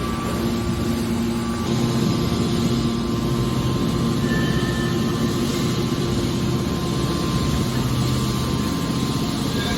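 Scrap metal baler running, a steady mechanical drone with a low hum, which deepens about two seconds in.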